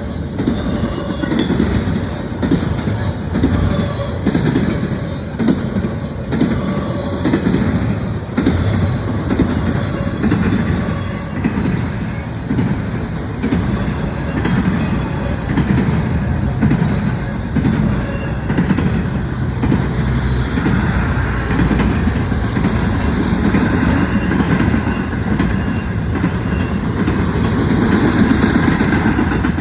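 Intermodal freight train rolling past: a steady rumble of the cars, with the wheels clicking rhythmically over the rails.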